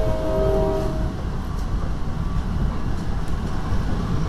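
Riding noise inside an NJ Transit Comet IV coach at speed: a steady low rumble of wheels on track. The last notes of the train's five-chime K5LA horn are heard through the car, cutting off about a second in.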